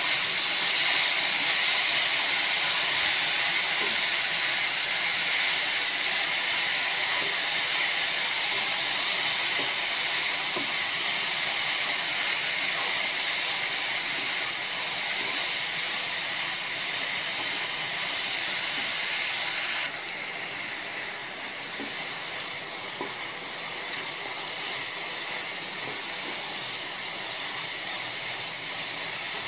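Grated coconut, sugar and milk hissing and sizzling in a hot nonstick pan as a wooden spatula stirs them: the milk cooking down in the ghee. The steady hiss slowly eases and drops in level suddenly about two-thirds of the way through.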